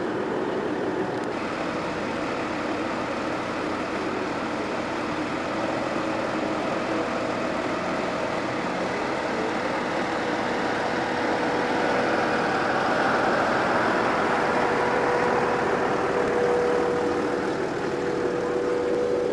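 Audi car running and moving slowly, a steady engine hum over tyre and road noise, getting louder from about twelve seconds in.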